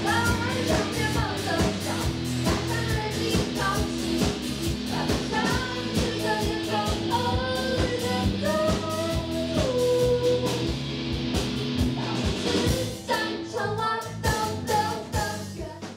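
Background song with a sung melody over guitar and a steady drum beat, fading out at the end.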